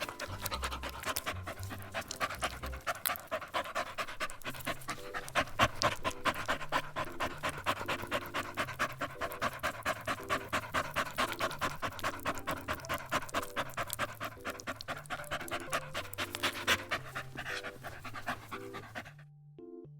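A dog panting rapidly and steadily in quick, even breaths, stopping shortly before the end. Faint low music notes sit underneath.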